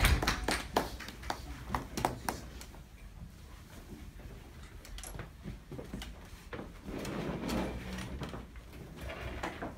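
Footsteps and light knocks on a hard floor, then an adjustable piano bench being handled and its height knobs turned, giving a stretch of creaking and scraping near the end.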